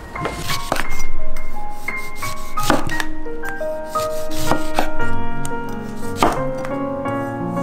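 Chef's knife slicing through green tangerines, each cut ending in a knock on a wooden cutting board, several cuts at irregular intervals. Light background music with held, bell-like notes plays underneath.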